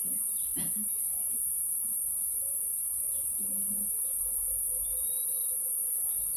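Steady, high-pitched insect chorus, a continuous shrill buzz with no pauses.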